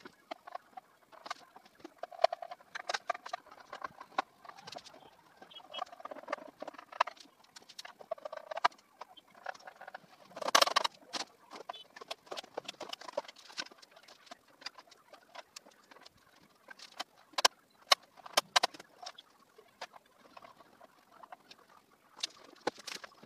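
Scattered clicks, taps and knocks of circuit breakers and tools being handled on a wooden panel box, with a louder clatter about ten seconds in.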